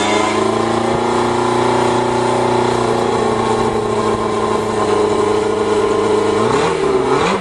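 Motorcycle engine of a home-built dune buggy running at a steady fast idle just after its first start, then revved up and back down twice in quick succession near the end.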